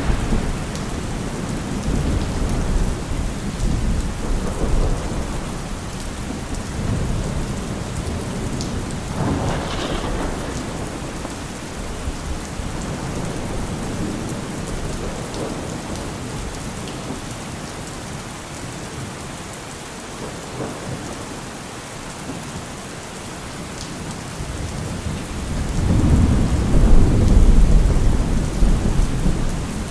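Steady rain falling, with rolling thunder rumbling low a couple of times and a louder, longer rumble building near the end.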